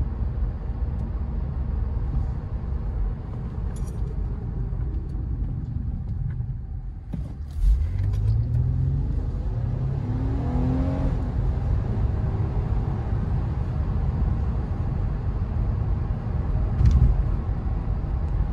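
In-cabin sound of a 2008 Acura TL's J-series V6 and tyres on the road while driving. The engine note rises as the car accelerates about eight seconds in, and there is a brief thump near the end.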